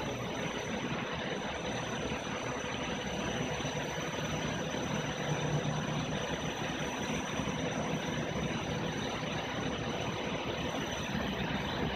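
Wind tunnel running at a steady speed: a constant rush of air and the fan's drone, with a faint steady high whine.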